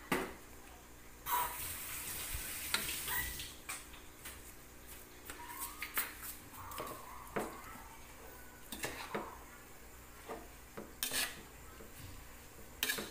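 Metal spoon scraping and clinking against a metal wok as a heap of chopped cassava leaves is tossed and stirred, with irregular knocks a second or two apart.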